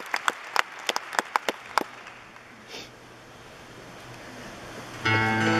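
Scattered hand claps from the arena audience for the first two seconds, then quiet crowd noise. At about five seconds the band comes in suddenly with a sustained chord, the opening of the song.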